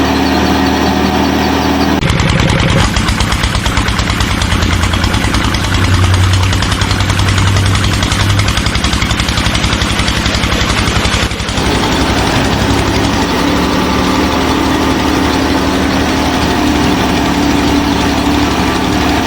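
An engine running steadily with a fast, even chugging pulse, typical of a tractor engine idling. The sound changes abruptly about two seconds in and again around eleven seconds in.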